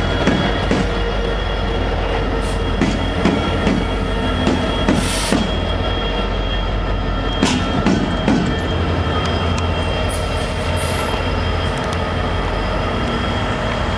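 Loaded coal train going by close: BNSF diesel locomotives rumble steadily while the wheels knock and clank over the rails, with a thin steady wheel squeal.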